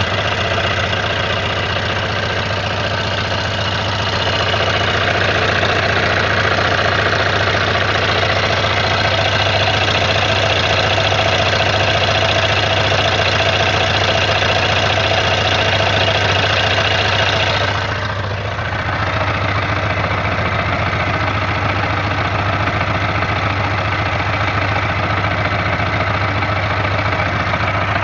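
Suzuki Katana 600's inline-four engine running steadily at idle with an odd noise that the owner suspects may be a knock. The sound dips briefly about two-thirds of the way through, then carries on.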